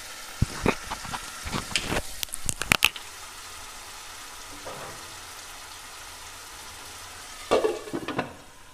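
Diced tomato and boiled potato sizzling gently in a nonstick kadai over low heat. A wooden spatula knocks and scrapes against the pan several times in the first three seconds, and near the end a glass lid clatters down onto the pan.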